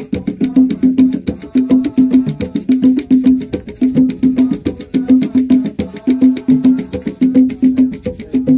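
Music with a steady beat: a repeating low melodic pattern under a quick, even run of sharp woodblock-like clicks.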